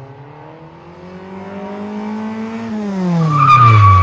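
Car engine revving up, its pitch climbing for a couple of seconds and then falling away, as a tyre squeal starts about three seconds in and becomes the loudest part.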